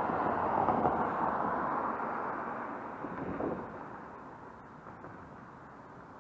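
A car passing on the road, its tyre and engine noise loud at first, then fading away over the first four seconds to a faint background traffic hum.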